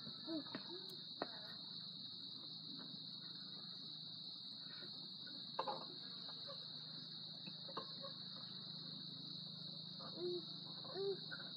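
A steady, high insect chorus, with a few faint knocks as someone climbs a wooden play set.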